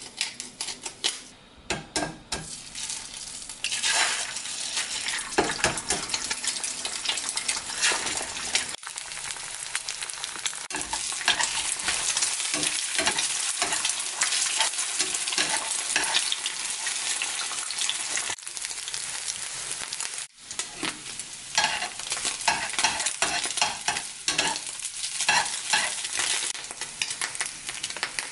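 Eggs frying in a pan with a steady sizzle from about four seconds in, broken by scrapes and taps of a metal slotted spatula stirring and breaking them up. A pepper grinder clicks at the start.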